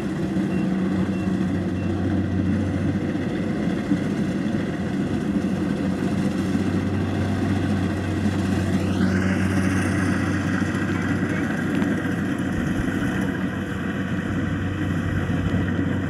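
Kubota DC-70 combine harvester's diesel engine running steadily while it harvests rice.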